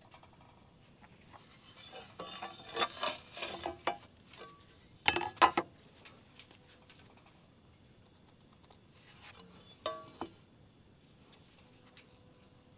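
Steady high chirring of insects, with scattered light clinks and knocks, the loudest a pair about five seconds in.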